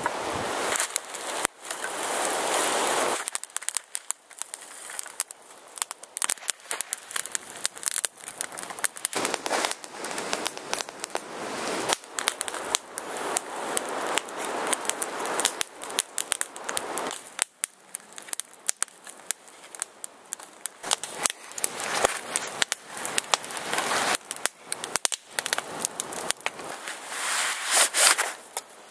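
Small wood fire of kindling sticks crackling, with many sharp pops all through, mixed with several stretches of rustling as sticks and gear are handled; the loudest rustling comes at the start and shortly before the end.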